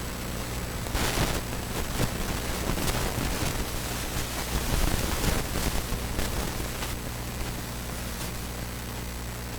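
Brake pedal being pumped in the car's cabin after a front pad change: several soft knocks and rustles over a steady low hum and hiss, as the caliper pistons are pushed back out against the new pads until the pedal firms up.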